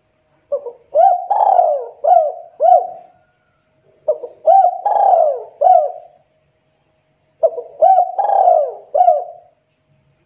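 Spotted dove (tekukur) cooing, a recorded lure call: three phrases of about five coos each, a few seconds apart.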